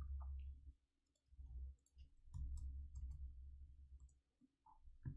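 Faint, scattered clicks of computer keyboard keys and a mouse.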